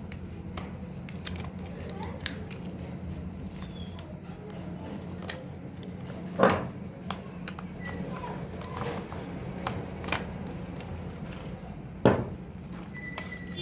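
Small clicks and knocks of parts and tools being handled, over a steady low hum, with two loud sharp knocks about six and twelve seconds in.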